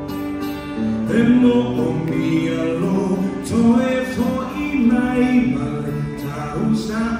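A Samoan song sung by a group with live instrumental accompaniment, at a slow, even dance pace.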